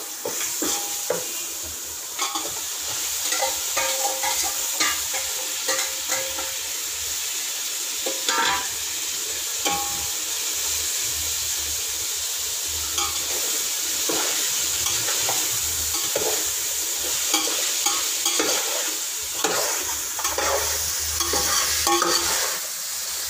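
Chicken pieces frying in oil in a metal pot, sizzling steadily, while a metal spoon stirs them and clinks and scrapes against the pot many times.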